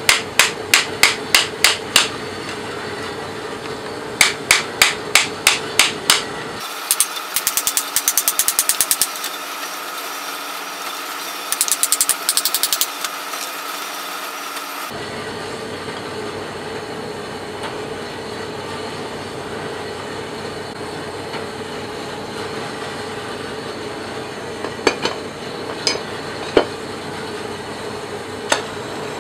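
Hammer striking a metal pipe casting flask to break out the plaster investment: quick runs of sharp metallic blows, about four a second, in four bursts over the first half. After that comes a steady hum with a few single knocks near the end.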